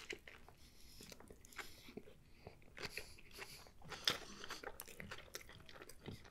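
A person chewing a mouthful of food up close to the microphone, faint, with scattered small clicks; the sharpest come about three and four seconds in.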